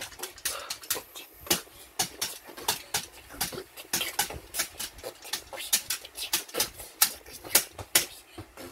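A child beatboxing: a quick, uneven rhythm of sharp mouth clicks, pops and hisses, several a second.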